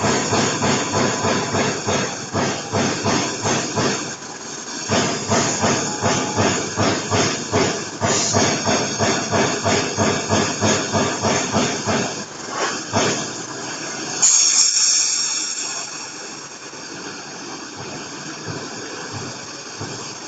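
TIG welding arc on a steel U-channel, hissing in regular pulses about three times a second. About fourteen seconds in there is a short, loud high hiss, after which the sound settles to a steadier, quieter hiss.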